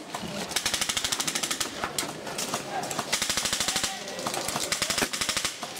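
Automatic airsoft guns firing in several rapid bursts, a fast rattle of shots well over ten a second, coming and going about three times.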